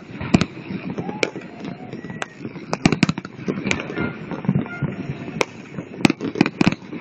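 Aerial fireworks shells bursting overhead: a dozen or so sharp bangs at uneven intervals, several close together around the middle and near the end.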